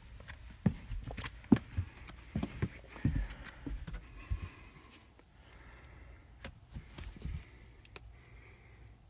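Irregular knocks and thumps of a person clambering across wooden attic joists, a quick run of them in the first half, then quieter with a few light taps near the end.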